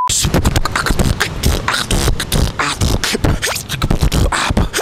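A brief test-tone beep, then a man beatboxing: a fast, steady rhythm of kick, snare and hi-hat sounds made with the mouth.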